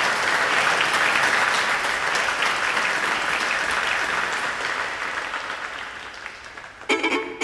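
Audience applauding, the clapping dying away over the last couple of seconds. Near the end the first notes of the bluegrass band come in.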